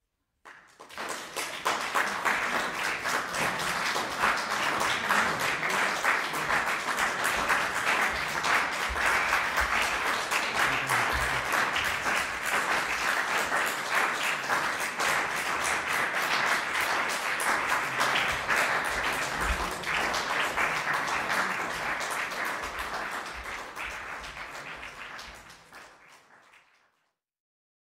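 Audience applauding: dense, steady clapping that starts suddenly, then thins out and fades away near the end.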